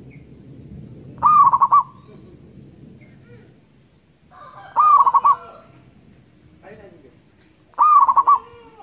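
Zebra dove (perkutut) cooing: three short, loud calls about three seconds apart, each a rising opening note that breaks into a quick rolling run of coos. Faint chirps of other birds sound between the calls.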